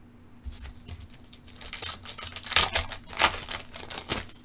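Silver foil pack of 2011 Panini Threads football cards crinkling and tearing open in someone's hands, an irregular run of sharp crackles that grows louder in the second half.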